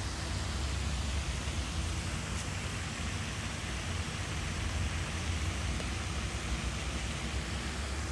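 Steady wind noise on the microphone: a flickering low rumble under an even hiss, with no distinct events.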